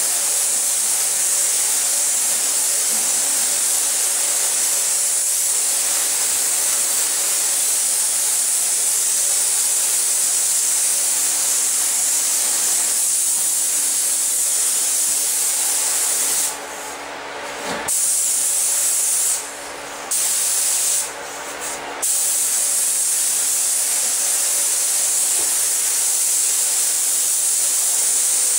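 Paint spray gun hissing steadily, stopping briefly three times in the second half before starting again.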